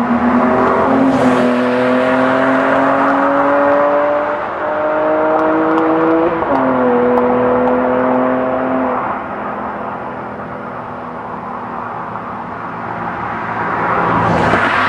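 BMW E46 M3's straight-six engine through Evosport headers and a Supersprint race exhaust, accelerating hard past with its pitch climbing, dropping at upshifts about four and a half and six and a half seconds in, then fading away. The engine noise rises loud again near the end.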